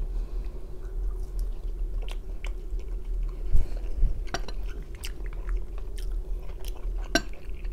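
A person chewing a mouthful of teriyaki chicken drumstick close to the microphone: wet mouth clicks and smacks scattered throughout, with one louder knock about three and a half seconds in. A steady low hum runs underneath.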